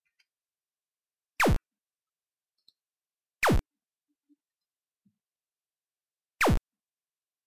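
Three short, loud electronic zaps, each a quick downward-sweeping 'pew' from high to deep, about two to three seconds apart. This is the unexplained noise the PC keeps playing through its speakers on its own.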